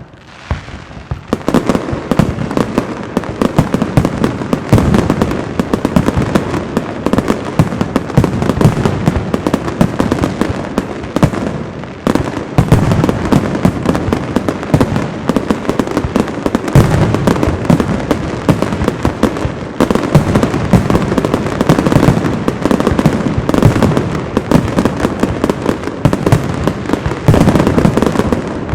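Fireworks display: a dense, unbroken barrage of bangs and crackling shell bursts, building up sharply about a second in.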